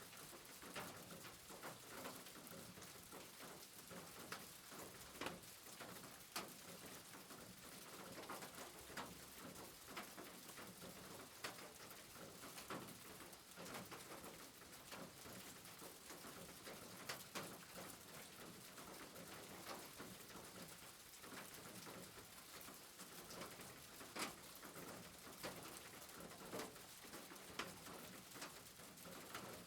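Rain falling steadily, a soft even hiss with scattered sharp drips and taps throughout.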